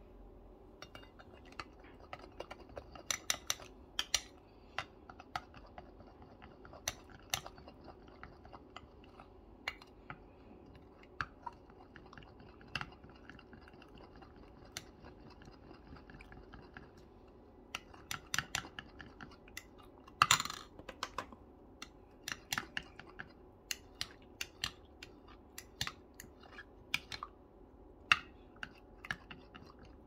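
A metal teaspoon stirring a thick paste in a glass cup, scraping and clinking irregularly against the glass, with a few louder clinks.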